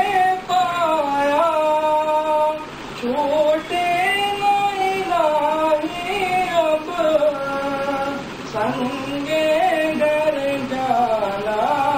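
A man singing a naat solo into a handheld microphone, in long held notes that bend up and down in pitch, with a short break for breath about three seconds in.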